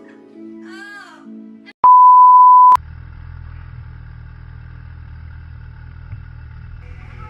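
A loud electronic bleep, one steady pure tone about a second long, starting about two seconds in and cutting off sharply. Before it plays music, and after it a steady low rumble runs on.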